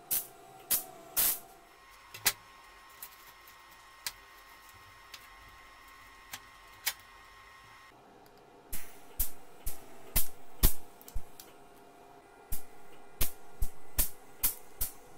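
MIG welder tack-welding steel in short crackling bursts of the arc: a few near the start, then a quick irregular run of tacks from about nine seconds in.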